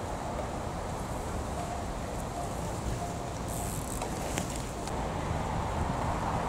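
Steady wind rumble on the microphone, with a cyclocross bike passing close about four seconds in: a brief rush of tyres and a few sharp clicks.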